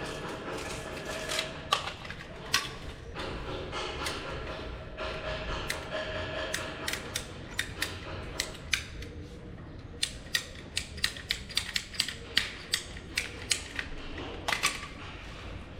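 A run of irregular sharp clicks and taps, as from small hard objects being handled, coming closest together about ten to thirteen seconds in.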